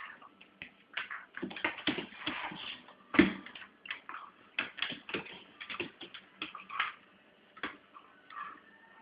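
A dog and a cat scuffling together: irregular scrabbling and clicking, with one loud thump about three seconds in.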